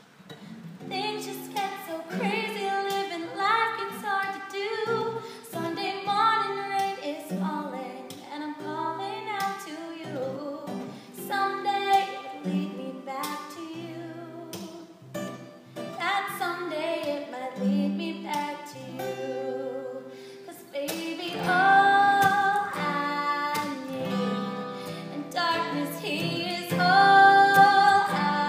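A woman singing a song over instrumental accompaniment, the voice growing louder and stronger about two-thirds of the way through.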